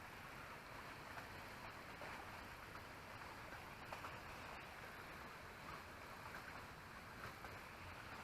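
Faint outdoor ambience: a steady low hiss with a few soft ticks.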